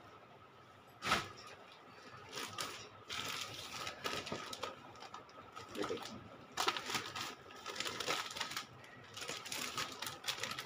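Clear plastic packaging bag crinkling and rustling as a folded suit is pulled out of it by hand, with a sharp tap about a second in.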